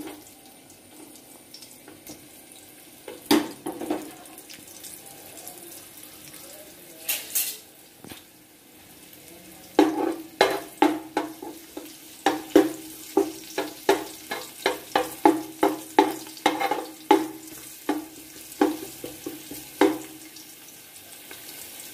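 Chopped garlic and ginger sizzling steadily in hot sesame oil in a pan. There are a few knocks early on, then from about halfway through a run of quick taps and scrapes, about two a second, as a utensil stirs the garlic against the pan.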